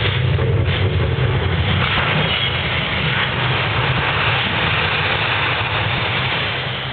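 Loud, deep rumbling sound effects from a building projection show's sound system, fading away near the end.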